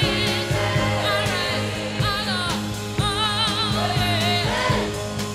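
Background pop song: a singing voice with vibrato over a band with a steady drum beat.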